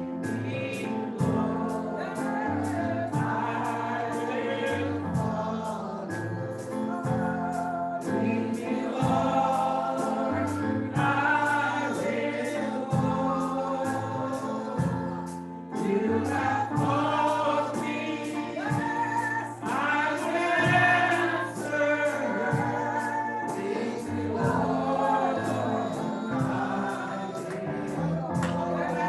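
Gospel music: a choir singing over a steady beat with a moving bass line.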